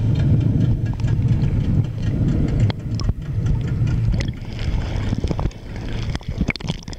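Muffled underwater rumble picked up by a camera underwater, with crackling and splashing in the second half as the camera breaks toward the surface.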